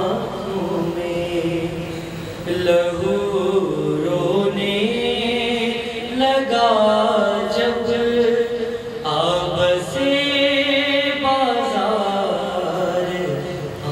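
A male voice chanting an Urdu noha, a mourning lament, in long held notes that glide up and down.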